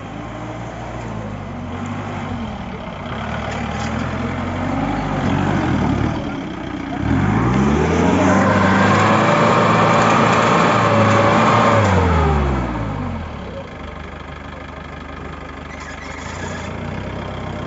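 Mahindra Thar's engine revving hard as the jeep struggles for traction in deep mud ruts. It revs lightly up and down at first. About seven seconds in it climbs steeply and holds high and loud for about five seconds, then falls back to a lower steady run.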